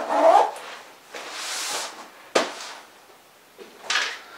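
A camera backpack being handled: nylon rustling, a zip drawn along for under a second, then a single sharp knock about halfway through and a brief rustle near the end.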